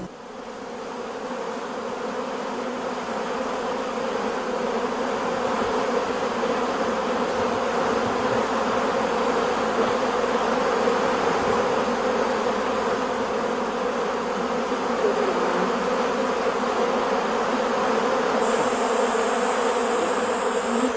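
A honeybee swarm pouring out of its hive: thousands of bees flying at once, a dense, steady buzz that swells over the first couple of seconds. This is swarming (분봉), the old queen leaving with part of the workers when the colony has outgrown its hive.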